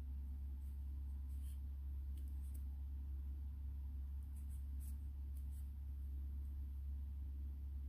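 Faint, brief scratchy rustles of crochet thread being drawn through loops on a crochet hook, a few scattered ticks with no rhythm, over a steady low hum.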